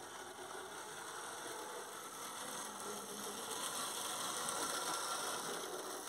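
H0-scale model diesel locomotive running past on the track. Its electric motor hums and its wheels rattle on the rails, getting louder as it nears and loudest about four to five seconds in as it passes close by.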